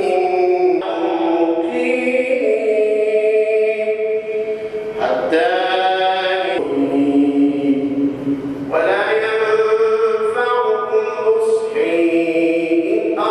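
A man's voice chanting Quran recitation in long, melodic held notes that slide between pitches, in phrases with short breaks between them: the imam reciting while leading Taraweeh prayer.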